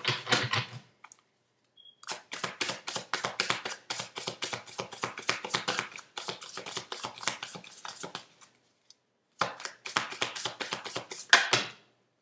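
Tarot cards being shuffled by hand: a rapid run of crisp papery clicks for several seconds, a brief pause, then a second, shorter bout of shuffling.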